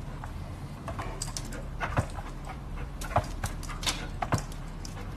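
Dogs' paws knocking and scratching against a glass storm door: several sharp knocks, the loudest about two seconds in, as a German Shepherd jumps up against the door.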